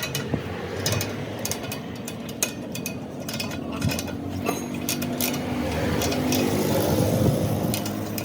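Metal work in a rim repair shop: scattered sharp metal knocks and clinks over a steady low machine hum, with a steadier noise swelling in the second half.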